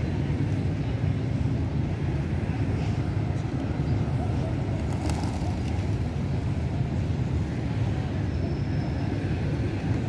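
Steady low outdoor rumble, with a few faint ticks about five seconds in.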